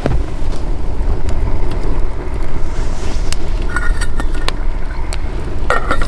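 Wind buffeting the microphone, a heavy steady low rumble, with a few sharp clicks scattered through it.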